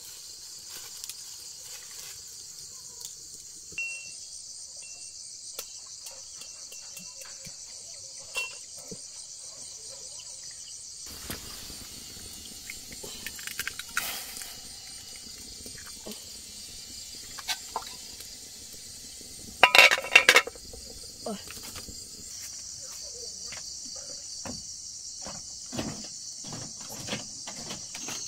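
Steady chorus of insects, a continuous high-pitched buzz, with scattered light knocks and a short burst of loud clattering about two-thirds of the way through.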